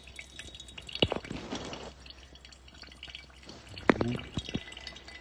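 Water dripping during hand coffee brewing, with two sharp clinks, about a second in and again near four seconds, and a short pouring hiss after the first.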